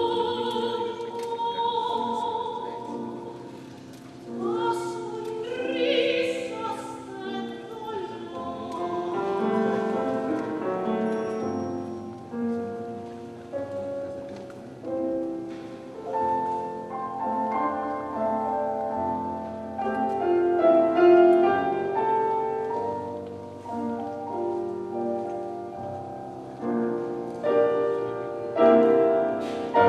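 Choir singing a classical piece, with several voices in overlapping held notes.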